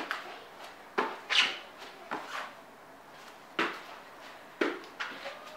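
Thuds of a person doing burpees on an exercise mat over a hardwood floor: hands slapping down and feet landing from the jumps, about six knocks, roughly one a second.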